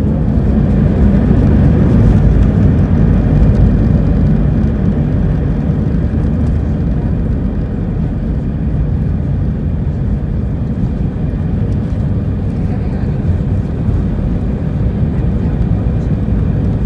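Inside the cabin of an Airbus A320: a steady low rumble of jet engine and airflow noise, a little louder in the first few seconds and then settling.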